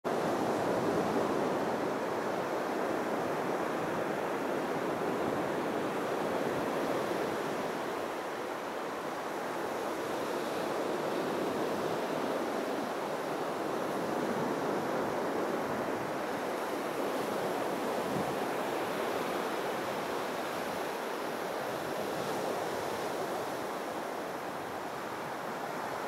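Steady rushing of sea surf, with wind.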